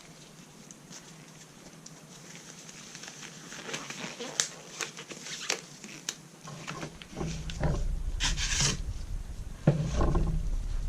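Hands handling things at close range: scattered light clicks and ticks, then louder rubbing and rustling with a low rumble in the second half, and one sharp knock near the end.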